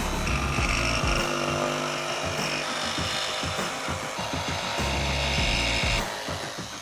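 DeWalt DCS335 cordless barrel-grip jigsaw with a fine-tooth T-shank blade running and cutting, a steady sawing sound that stops about six seconds in.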